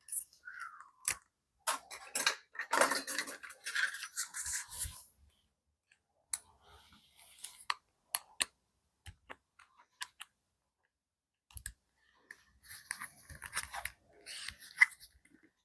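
Irregular clicks and short scraping, crunchy sounds of small metal parts being handled, as the TIG torch is fitted with a clean tungsten electrode.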